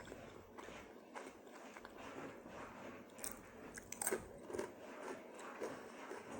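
A person chewing and biting food close to the microphone, with a few sharp crunches about three and four seconds in.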